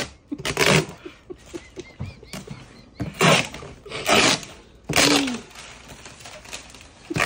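Several breathy, gasping bursts of helpless laughter, one ending in a short falling squeal.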